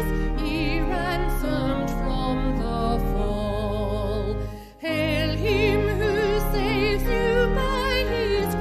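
A slow hymn sung with vibrato over a sustained accompaniment, with a brief break between phrases a little over halfway through.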